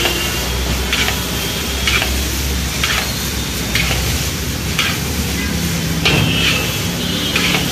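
Noodles stir-fried in a steel wok over a gas flame: steady sizzling, with the metal spatula scraping and knocking against the wok about once a second.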